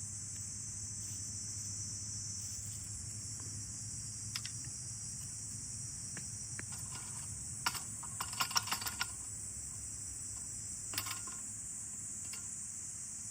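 Steady, high-pitched chorus of insects, with a handful of small clicks and clinks, bunched about eight to nine seconds in.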